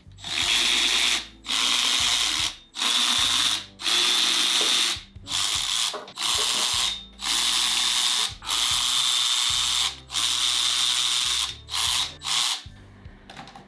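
Power tool run in about ten bursts of roughly a second each, with brief pauses between, stopping shortly before the end; it is being used to take the wheel studs out of the hub.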